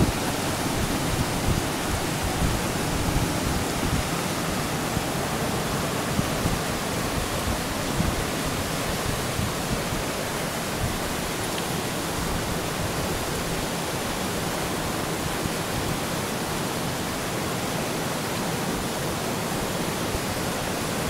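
Ice shove on a lake: masses of broken plate ice grinding and sliding up onto the shore, a steady, unbroken rushing hiss.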